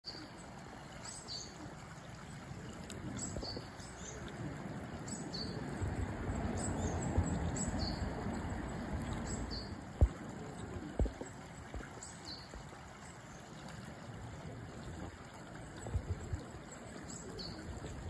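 Short, high bird chirps repeating every second or so over a steady low rush of flowing river water. Two sharp knocks come about ten and eleven seconds in.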